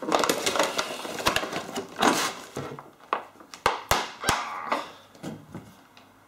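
Cardboard and clear plastic packaging rustling and crinkling as a boxed toy figure is pulled out and unwrapped, with a few sharp plastic clicks about halfway through. The rustling dies down toward the end.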